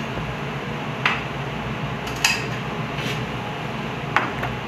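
Metal pans and utensils clinking on a stove: about four sharp clinks roughly a second apart, over a steady background noise.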